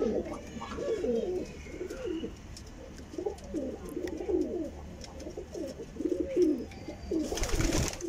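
Domestic pigeons cooing in a loft, several birds giving repeated overlapping coos, with a short burst of noise near the end.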